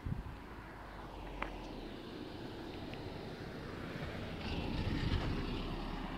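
E-GO Cruiser v2 electric longboard rolling on asphalt: a steady rumble of the wheels over the road surface that swells about two thirds of the way through, with one short click about a second and a half in.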